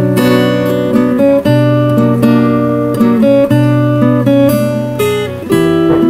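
Solo acoustic guitar played fingerstyle: a melody picked over held bass notes, with fresh notes and chords struck about once a second.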